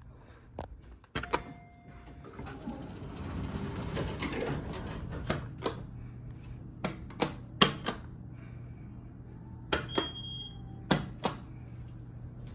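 Elevator car pushbuttons clicking as they are pressed: a dozen or so sharp clicks in pairs and small groups. Under them runs a steady low hum, and a swell of noise builds and fades in the first half.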